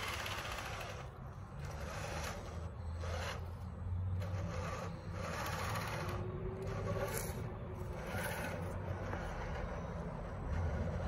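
RC crawler truck's motor running in repeated surges as its tyres spin and scrape through loose sand, with a faint motor whine rising about halfway through.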